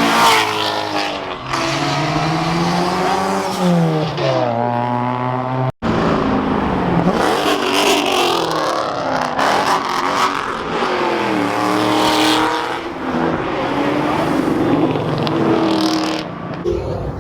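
Car engines revving hard and accelerating past, their pitch climbing and dropping again through gear changes. It breaks off suddenly about six seconds in, and then more cars rev and accelerate by.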